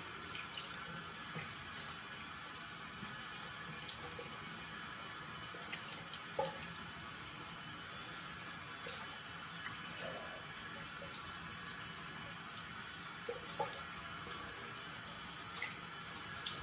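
Water running steadily from a tap into a sink, with a few faint knocks.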